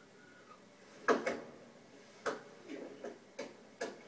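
A handful of sharp knocks and taps, irregularly spaced, starting about a second in.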